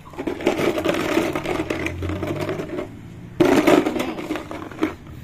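Hard plastic toy puzzle pieces rattling and clattering as a hand rummages through them, with a sudden louder clatter about three and a half seconds in.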